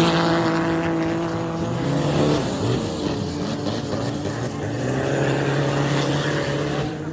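Engine of a Thai long-tail racing boat running hard with a steady, even drone. Its pitch shifts briefly about two seconds in, then holds.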